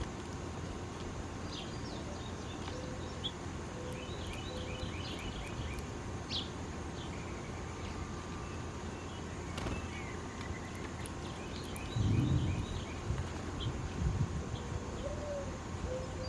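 Small birds chirping, with many short, quick, high notes in scattered runs over a steady low background rumble. About twelve seconds in there is a louder low rumble or bump.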